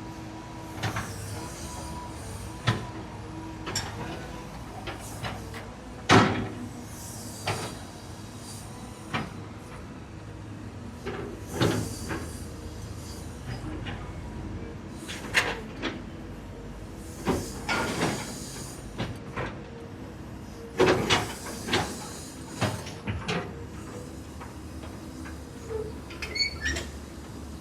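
Caterpillar 314E CR excavator working, its CAT C4.4 diesel engine running steadily under a string of sharp, irregular clanks and knocks.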